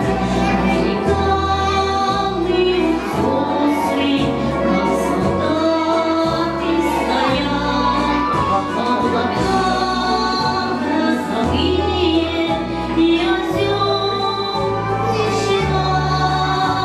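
A woman singing a Russian song into a microphone over an instrumental accompaniment with a steady, stepping bass line.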